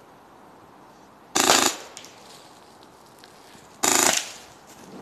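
Airsoft gun firing two short automatic bursts, each about half a second long, a couple of seconds apart.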